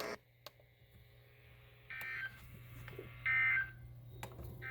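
Three short electronic beeps starting about two seconds in, spaced roughly a second and a half apart, the second loudest, over a faint steady low hum.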